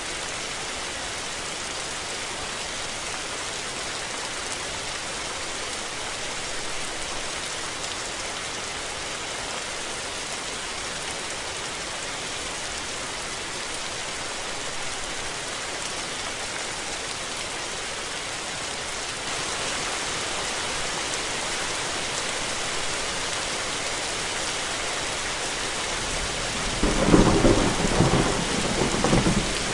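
Steady heavy rain falling, an even hiss that grows a little louder about two-thirds of the way through. Near the end a loud rolling rumble of thunder comes in.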